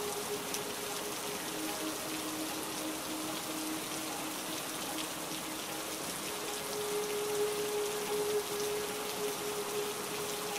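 Steady heavy rain falling, a dense, even patter of drops. A faint held low tone sits underneath and shifts pitch every few seconds.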